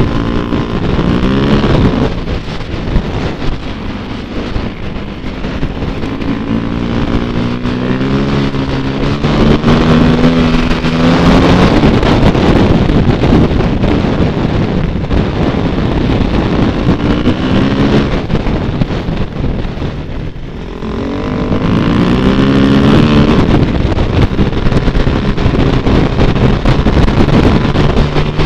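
Motorcycle engine running under load as the bike rides, its pitch climbing and then dropping back several times as it accelerates through the gears, over wind noise on the microphone.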